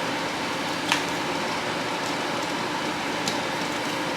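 Steady, even background noise with a few faint light clicks, about a second in and again near the end.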